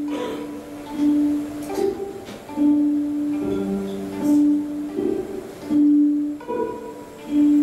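Violin playing a slow repeating phrase: a held low note comes back about every second and a half, with shorter higher notes between.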